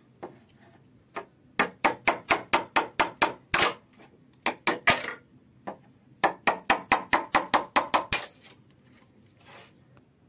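Hammer blows in quick runs of about four or five strikes a second, three runs in all, knocking loose the nailed wooden edge strips of a plywood gate.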